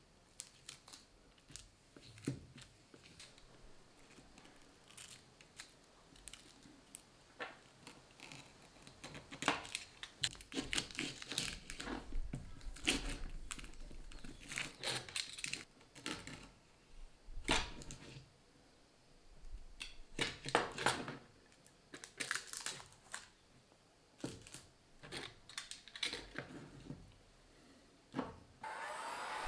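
Clear adhesive tape being pulled off the roll, torn and smoothed down over a cracked phone screen: irregular crackling rips and crinkles. Just before the end a heat gun switches on with a whining hum.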